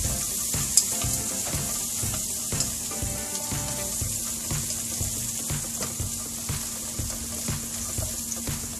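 Sliced shallots and garlic sizzling steadily in hot oil in a non-stick wok as they are stirred with wooden chopsticks, with a sharp click about a second in.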